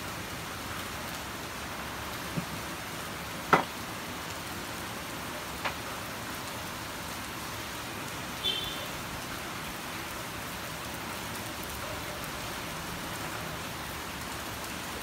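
Steady heavy rain falling outside. Three sharp knocks sound over it, the loudest about three and a half seconds in, and there is a brief high squeak about halfway through.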